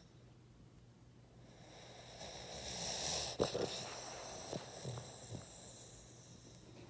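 Boston terrier breathing noisily in its sleep, snoring and snorting. It is one long noisy breath that swells over a couple of seconds, has a sharp click near the middle, then fades away.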